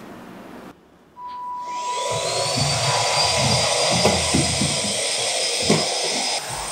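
Small handheld cordless vacuum cleaner switched on, its motor whining up in pitch to speed and then running steadily with a hiss of suction, over low knocks of the nozzle against the wooden floor. The motor cuts off near the end.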